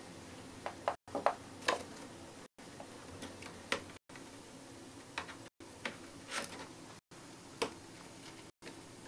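Light scattered clicks and scuffs over a steady hiss as a hamster drags a large bone-shaped dog biscuit into a cardboard box on a wooden floor. The sound cuts out briefly about every one and a half seconds.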